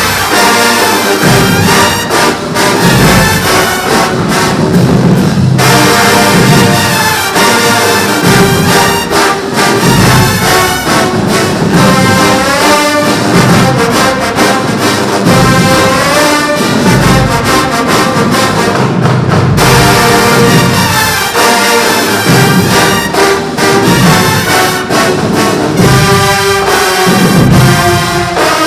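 Marching band playing loudly: brass with a steady, driving drum beat.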